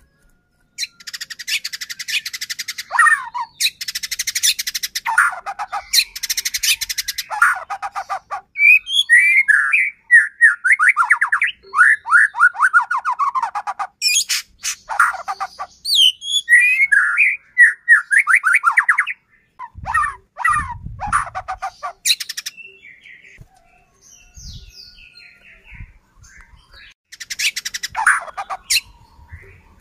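White-rumped shama singing vigorously, mixing harsh buzzy rattles with quick runs of sweeping whistled notes, in bouts broken by brief pauses.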